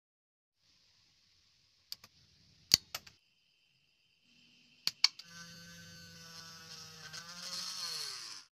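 Sharp clicks and snips of small cutting pliers clipping a thin PVC strip, the loudest about three seconds in. A sustained pitched hum with several tones follows for the last three seconds, growing louder and dropping in pitch just before it cuts off.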